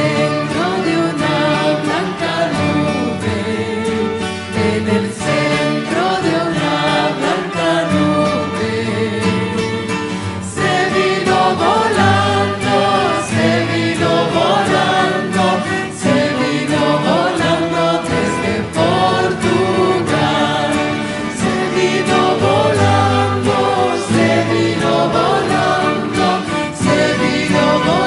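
Background music: a choir singing a hymn over steady instrumental chords.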